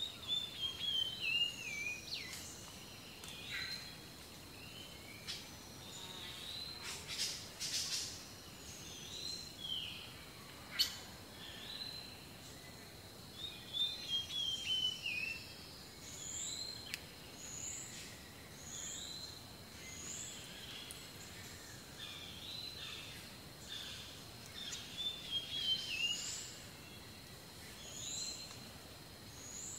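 Woodland ambience of several songbirds calling and singing: repeated short high chirps and warbling, falling phrases, over a faint steady high tone, with a few sharp clicks.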